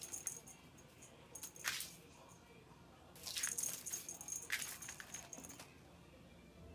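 A cat's claws scraping and snagging on a carpet-covered scratching post as it tugs at a claw caught in the weave. The sound comes in three bouts of rasping: a short one at the start, another about a second and a half in, and a longer one from about three to five and a half seconds.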